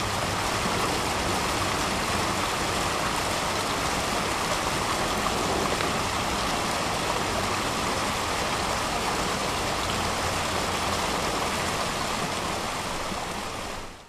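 Steady rush of water spilling down a small artificial rock waterfall, fading out near the end.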